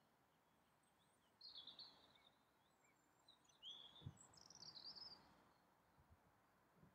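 Near silence with faint birdsong: short chirping trills about a second and a half in, and again from about three to five seconds. A soft low thump falls just after four seconds.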